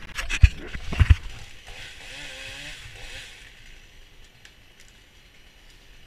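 A few heavy knocks and bumps in the first second or so from the camera being handled. Then a chainsaw revs faintly, its pitch wavering, and dies down a little past the three-second mark.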